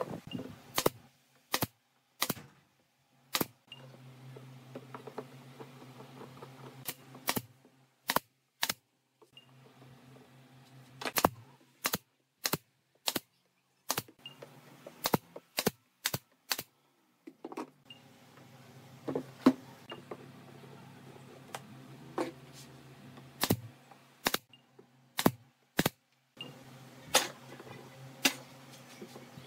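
Sharp, irregular clicks and knocks of bar clamps being handled and tightened against a glued wooden tabletop, a few dozen in all. A low steady hum runs underneath and drops out several times.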